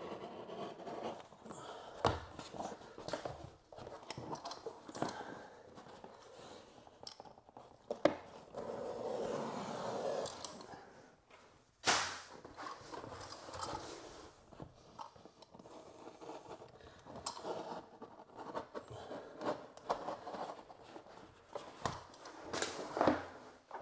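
Sheet vinyl lino being handled and worked into place on a floor: irregular rustling, scraping and sliding of the sheet, with scattered clicks and one sharp knock about twelve seconds in.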